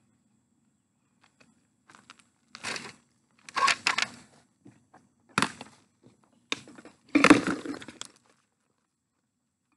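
Footsteps on dry garden soil and the rustle and knock of a carried tub close to the microphone. About five irregular crunching bursts begin a couple of seconds in, and the loudest comes near the end as the tub passes right by.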